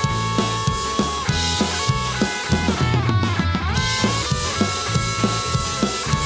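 Instrumental part of a pop-rock jingle: a drum kit keeps a steady beat under bass and guitar. About halfway through, the cymbals drop out for about a second.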